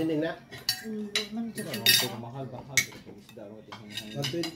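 Metal spoons and forks clinking and scraping on ceramic plates while eating, with several sharp clinks, the loudest about two and three seconds in.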